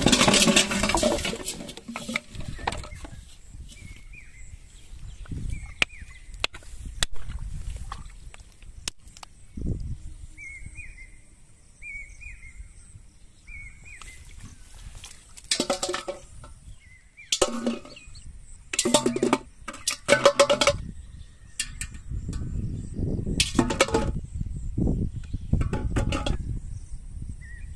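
Plastic bottles clattering as they are tipped out of an aluminium pot, then a few short bouts of handling noise, with short repeated chirps of a bird in the quieter stretch between.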